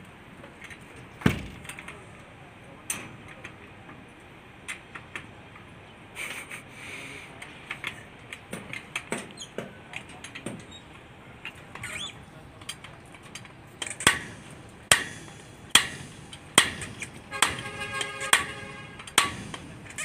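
Sharp metallic knocks with a short ring, from the concrete pump hose line and its coupling: a couple early on, then a steady run of about one a second through the second half.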